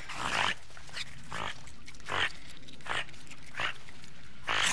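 An animal making short, breathy puffs of air, about six of them at uneven intervals of roughly a second, the last one near the end the loudest.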